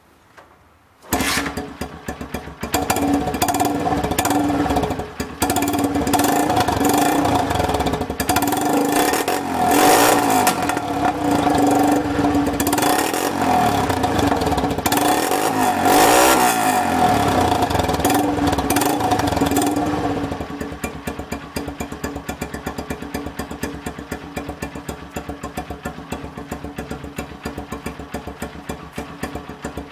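Honda CG 125 Fan's single-cylinder four-stroke engine starting about a second in through a loud aftermarket Roncar popping ('estralador') exhaust. It runs at a fast idle and is revved up and back down twice. For the last third it settles to a quieter, even idle.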